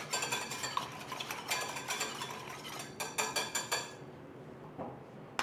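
Wire whisk beating a creamy liquid in a small stainless-steel saucepan: rapid metallic clinks and scraping of the wires against the pan. The whisking dies away about four seconds in.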